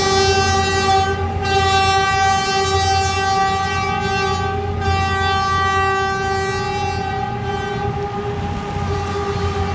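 PNR 900 Class diesel locomotive's horn sounding one long unbroken blast at a steady pitch, over a low engine rumble.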